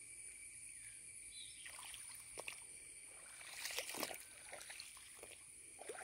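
Footsteps squelching and sloshing through shallow water and waterlogged grass, starting about two seconds in and loudest around four seconds in. Under them, a steady high insect trill.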